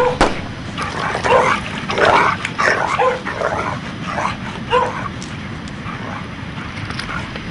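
A dog barking and yelping in a quick run of barks through the first five seconds, then quieter. A sharp knock comes right at the start.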